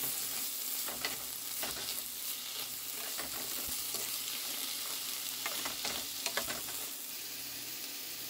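Sliced mushrooms, onion and green pepper sizzling in a nonstick frying pan, stirred with a spoon that scrapes and clicks against the pan. The sizzle is a steady hiss, and the clicks come scattered, thickest about two-thirds of the way through.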